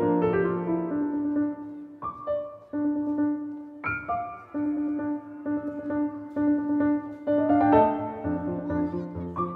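Background piano music: a slow melody of held notes, each struck note ringing on.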